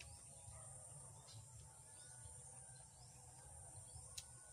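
Near silence: faint outdoor ambience with a steady high-pitched insect drone and a small click about four seconds in.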